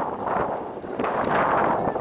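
Strong wind buffeting the microphone in uneven gusts, with a faint click about a second in.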